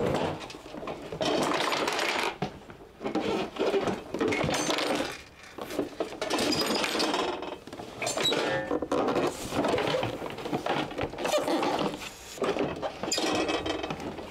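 A dismantled air fryer being handled and shaken, with a loose metal key rattling and clinking inside its casing; the key is what had shorted the appliance so it would not turn on. The noise comes in irregular bursts.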